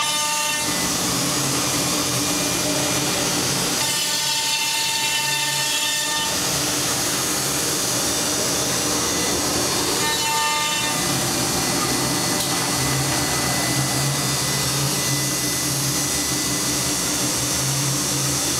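HOMAG CNC woodworking machining center running, a steady machine noise over a low hum, with a high whine that comes in briefly three times.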